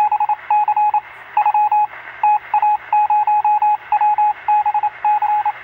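Morse-code-style beeping used as an intro sound effect: one steady tone keyed on and off in quick groups of short and longer beeps, over a hiss of radio static.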